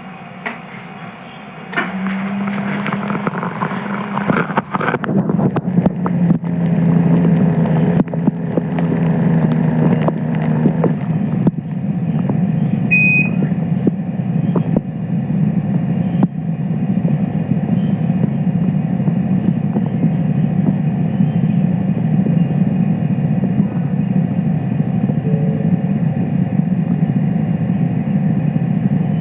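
Blood pressure cuff equipment humming steadily during a measurement. A low pitched motor tone and scattered clicks run from about two seconds in to about eleven seconds in, then the sound settles into an even low noise.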